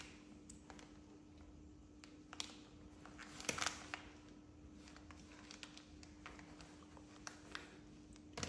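Quiet room with a steady faint hum, broken by light rustles and small clicks of cloth and fur being handled, a little louder about two and a half and three and a half seconds in.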